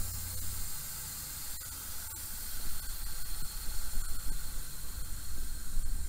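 Steady hiss of nitrogen flowing through the gauge manifold and hoses into the refrigerant lines as the pressure is raised for a pressure test.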